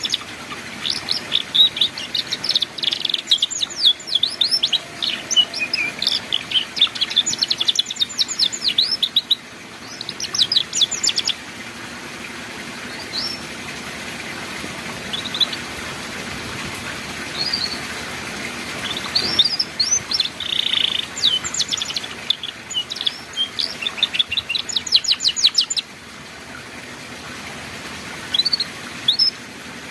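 Domestic canary singing ngeriwik-style song: fast chattering trills and chirps, dense runs in the first ten seconds or so and again a little past the middle, with scattered single chirps between, over a steady hiss.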